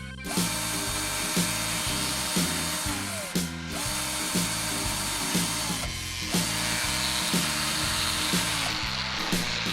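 A small power tool running steadily, drill-like, over background music with a steady beat; the tool sound starts just after the opening and dips briefly twice.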